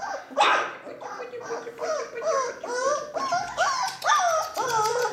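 Four-week-old Ca de Bou (Mallorquin mastiff) puppies whimpering: from about two seconds in, a quick run of short whines that rise and fall in pitch, two or three a second.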